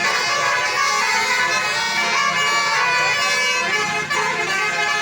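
Bus basuri (telolet) musical air horn playing a tune: several horn tones sounding together and shifting in pitch without a break, briefly dipping about four seconds in.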